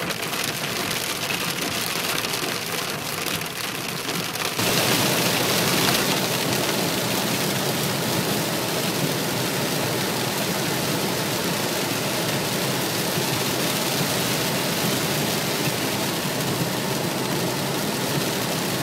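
Sleet and hail pelting the roof and windshield of a moving car, heard from inside as a dense, steady patter over the car's road noise. About four and a half seconds in it suddenly becomes louder and fuller.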